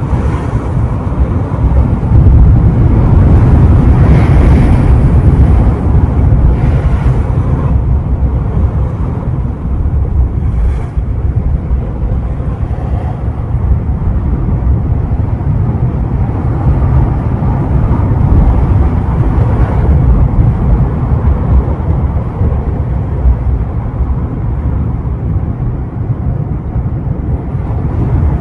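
Ocean surf washing onto the shore in a steady rush of noise, swelling louder a couple of seconds in and again about two-thirds of the way through. Wind buffets the microphone with a heavy low rumble.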